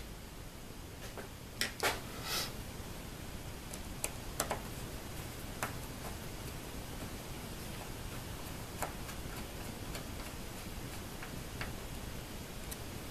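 Scattered light metallic clicks and taps of a small screwdriver working at screws in the fixture's metal base plate, a few close together about two seconds in and sparser after, over a faint steady low hum.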